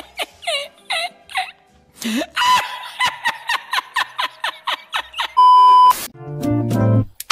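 A man laughing in quick repeated bursts, each falling in pitch, for about five seconds. Then a loud steady test-tone beep lasting about half a second, followed by a second of glitchy buzzing static.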